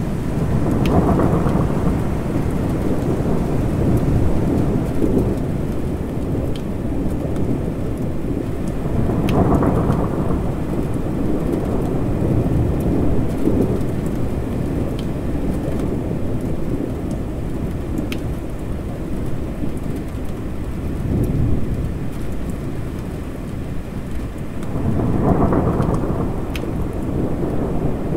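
Thunderstorm: steady heavy rain with rolling thunder. Long low rumbles swell and fade about a second in, around ten seconds and again near the end, while scattered drops tick through the rain.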